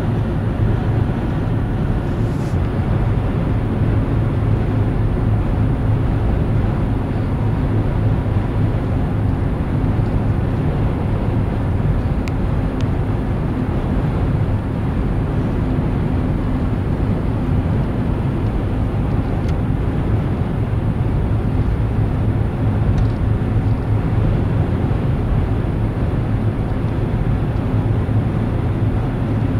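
Steady low vehicle rumble with an even hiss above it, unchanging throughout.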